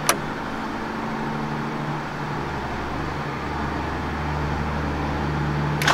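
Steady low engine hum with a sharp click right at the start; just before the end the sound gets suddenly louder as an engine is started.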